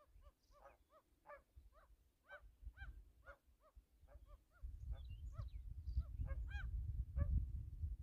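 A flock of geese honking on the water: short, rising-and-falling calls repeated about two or three times a second. A low, rough noise comes in about halfway and stays under the calls.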